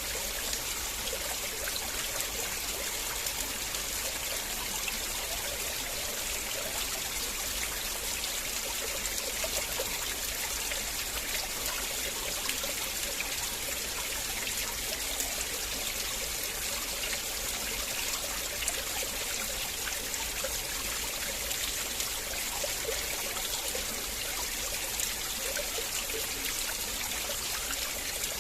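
River water flowing and trickling steadily, with small splashes.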